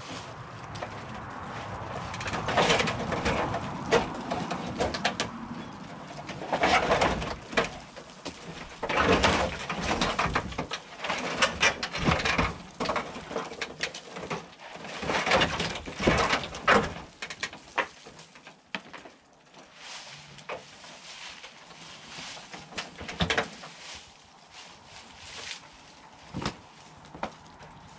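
Rusted corrugated tin roofing and old porch boards creaking, scraping and knocking irregularly as the collapsed porch roof is pushed and pulled by hand. Busy for the first two thirds, then only scattered knocks.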